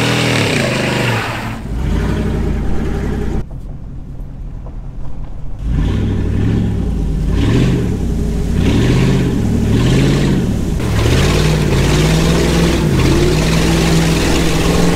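Truck engines revving while driving through deep flood water: the engine note swings up and down repeatedly, about once a second, then settles into a steady pull near the end, over a constant hiss of water spray.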